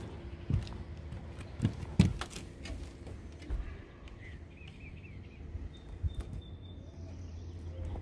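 Scattered thumps and knocks of someone stepping and moving about, the loudest about two seconds in, with a few faint bird chirps around the middle.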